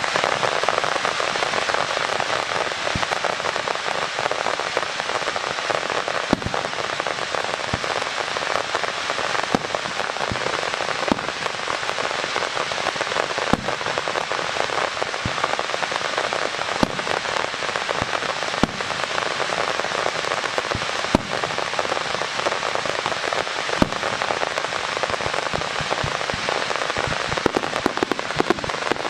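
Fireworks: a dense, steady crackling hiss from a Niagara waterfall display of falling sparks, with the bangs of aerial shells bursting every second or two, coming faster near the end.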